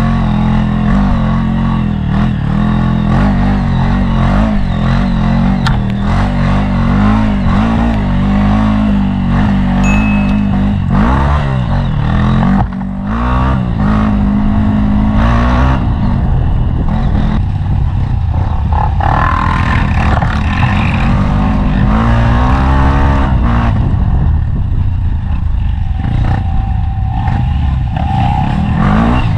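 Single-cylinder Honda CRF dirt bike engine running hard on a trail ride, its pitch repeatedly rising and falling as the rider works the throttle and shifts gears, with a short drop in level about thirteen seconds in.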